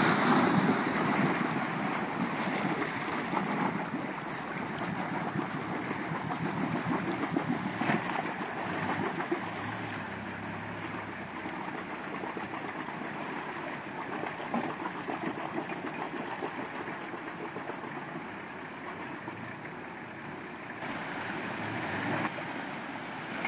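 Creek water splashing and rushing around the tyres of a Toyota Land Cruiser HZJ75 Troop Carrier driving through a rocky creek, loudest at the start as the front tyre pushes a wave. Its 4.2-litre naturally aspirated diesel runs faintly under the water noise.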